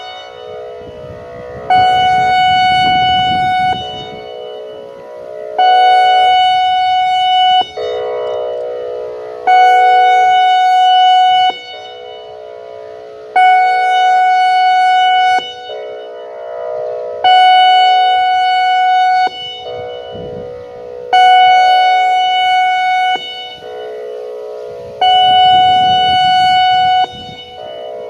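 ASC E-Class EC4 outdoor warning siren sounding its pulse signal during a monthly test. It gives a steady high tone in blasts of about two seconds, one roughly every four seconds, each starting and stopping abruptly, with a much quieter sound between blasts.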